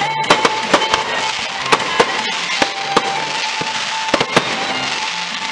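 Aerial firework shells bursting in an irregular series of sharp bangs and crackles, over music playing from the show's sound system.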